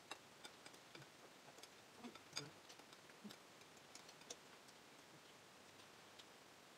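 Faint, irregular clinks of metal spoons against ceramic plates and a serving bowl, with a louder clink about two and a half seconds in.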